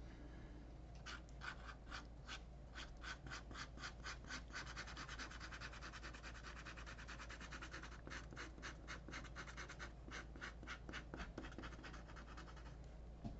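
Sharpie felt-tip marker scratching quick short hatching strokes on paper, drawing beard stubble: about three strokes a second, running together into continuous scribbling in the middle, then separate strokes again.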